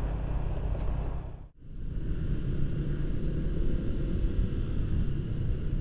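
Honda PCX 150 scooter on the move: a steady low rumble of engine and riding noise. It drops out for a moment about one and a half seconds in, then carries on as before.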